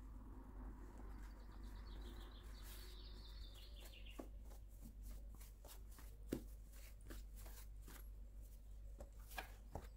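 Faint soft taps and pats of hands working and stretching floured pizza dough over a countertop, with one sharper knock about six seconds in. Behind them, a bird trills from about a second in: a fast run of high notes that steps down in pitch before stopping.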